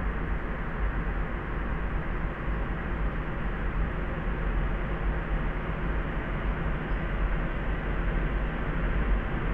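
Steady layered sleep noise, a soft even hiss-and-rumble heaviest in the bass and muffled, with no high hiss, and no change or break.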